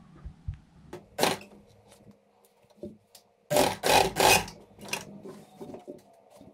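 Domestic sewing machine stitching in short runs, loudest about halfway through, with small clicks and fabric handling between.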